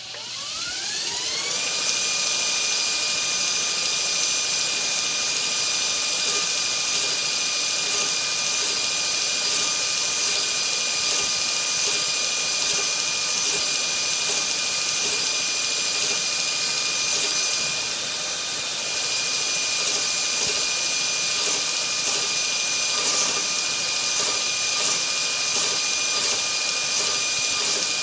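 TW-90 knife belt grinder's motor spinning up with a rising whine over about two seconds, then running steadily while its 80-grit belt surface-grinds a steel knife blade held on the magnetic chuck, with a faint regular pulse about once a second.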